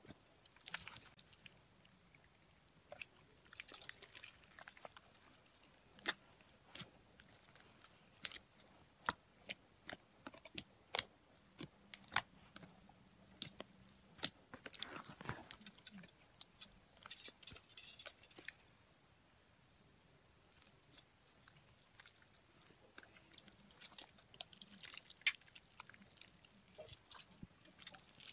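Thick, glossy slime being kneaded and pressed by hand in a plastic tray, giving irregular sticky clicks, pops and squelches, with a short lull a little past the middle.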